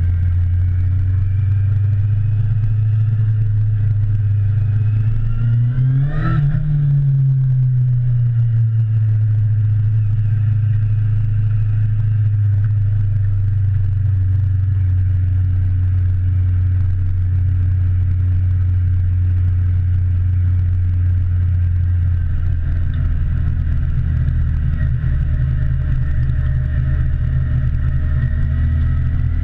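Motorcycle engine heard from the rider's seat while riding, with a strong low rumble of wind and road. The revs climb over a few seconds, peak sharply about six seconds in, then drop back to steady, lower running, and rise slightly again near the end.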